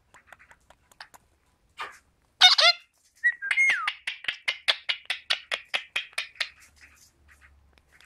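Indian ringneck parakeets calling: a few faint ticks, then one loud harsh call about two and a half seconds in, followed by a fast chattering run of short chirps, about five a second, with a falling whistle near its start, for about three seconds.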